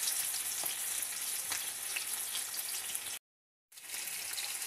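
Catla fish steaks sizzling as they shallow-fry in hot oil in a frying pan, a steady hiss with small crackles as each piece goes into the oil. The sound drops out completely for about half a second a little past three seconds in, then resumes.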